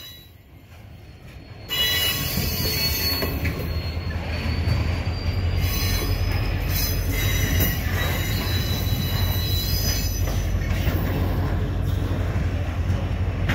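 Phosphate hopper wagons of a freight train rolling past at close range: a steady heavy rumble with high, steady wheel squeal and a slowly rising whine. It starts faint and jumps up suddenly about two seconds in.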